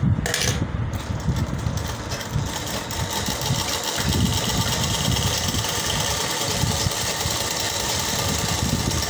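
Straight-stitch sewing machine running steadily, stitching a buckram neckline facing onto fabric, with a brief pause about four seconds in.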